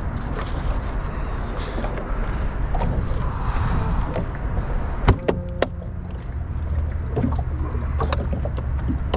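Steady low rumble of wind and water around a small fibreglass skiff, with a few sharp knocks and clicks of gear being handled on the deck, three close together about five seconds in and a few more near the end.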